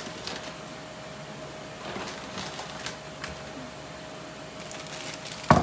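Light knocks and rattles of things being handled in a kitchen over a steady appliance hum, ending with a sharp thump as a jar of sliced jalapeños is set down on the counter near the end.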